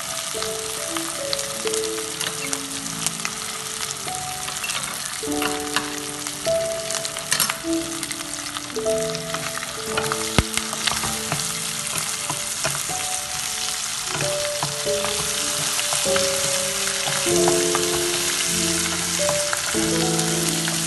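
Onion paste with ginger-garlic and green chilli sizzling in hot oil in a nonstick frying pan, stirred and scraped around with a spatula. There are a few sharp knocks, the loudest about two thirds of the way through.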